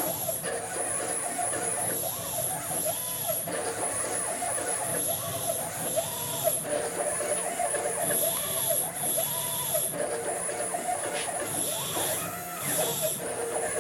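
Stepper motors of a CNC-converted PM-25MV (BF20-type) milling machine driving the axes through a test program: a whine that rises and falls in pitch again and again as the axes speed up and slow down.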